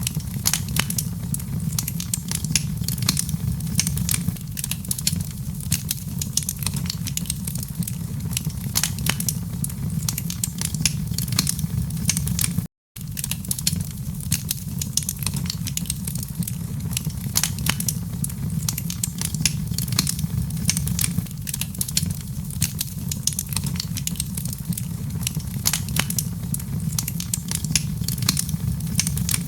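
Wood fire crackling in a fireplace: dense, rapid pops and snaps over a steady low rumble of the flames. The sound drops out to silence for a split second about thirteen seconds in.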